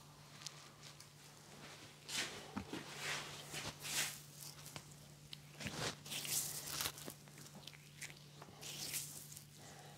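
Hands rubbing and sliding over skin and hair during a face and head massage: irregular soft swishes and brushing crackles, over a faint steady low hum.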